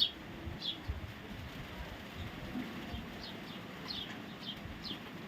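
Parrot giving a series of short, high chirps, each falling quickly in pitch, at irregular intervals with a pause of about two seconds in the middle.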